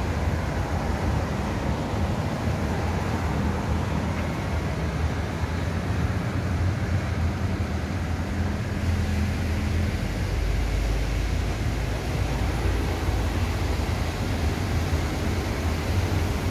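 Road traffic at a roundabout: a steady low rumble of passing engines and tyres. A deeper, heavier engine rumble builds in the second half as a double-decker bus draws close.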